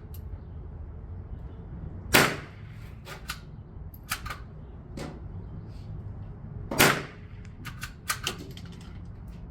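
Two .22 LR gunshots about four and a half seconds apart, each a single sharp crack, with fainter sharp clicks and pops scattered between them.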